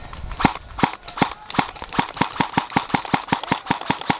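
Airsoft gun firing a rapid string of shots: two single shots, then a steady run of about six a second.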